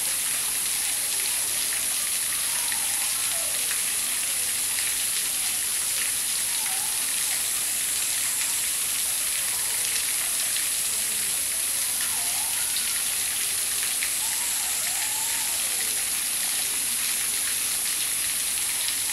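Running water trickling and splashing steadily over the rocks of a shallow pool, a constant hiss-like patter.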